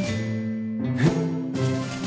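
Background music with held notes and a sharp accent about halfway through.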